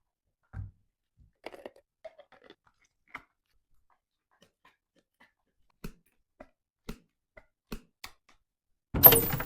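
Plastic parts of a manual breast pump and baby bottle being handled: scattered light clicks and taps with a soft thump early on. A sudden loud noise near the end.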